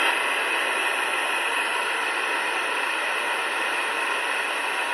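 A TG113 mini Bluetooth speaker switched to FM radio mode, playing untuned FM static: a steady, even hiss that comes on abruptly.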